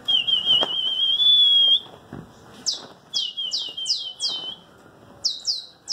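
A songbird calling: a high, wavering whistled note lasting about two seconds, then two runs of quick chirps, each sweeping sharply down in pitch.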